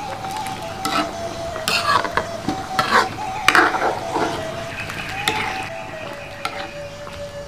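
A spoon stirring coconut-milk curry in a metal wok, scraping and clinking against the pan several times. Background music holds a steady tone underneath.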